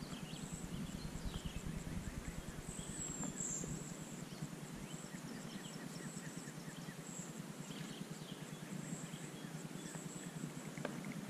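Fishing reel being cranked as a topwater frog lure is retrieved: a fast, low rattle of ticks. Short high bird chirps sound above it, one louder chirp about three seconds in.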